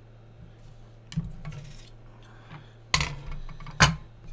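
Knocks and light clatter of small hand tools being handled and set down on a workbench, three main strikes with the loudest near the end, over a low steady hum.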